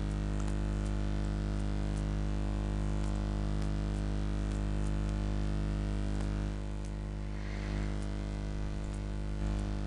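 Steady electrical mains hum and hiss of the recording setup, with a few faint mouse clicks scattered through it.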